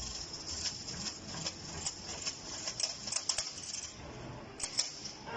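Automatic wire bending machine at work, feeding and bending steel wire: a dozen or so sharp clicks and ticks, bunched around the middle and again near the end, over a faint low hum.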